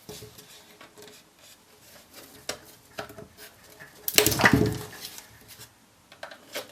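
Hard plastic laptop battery case being pried open with a tool: scattered small clicks and scrapes, then a louder burst of cracking about four seconds in.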